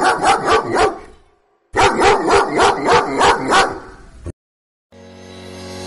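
A dog barking in quick, evenly spaced barks, several a second, in two runs with a short pause between; the second run cuts off abruptly. Music fades in near the end.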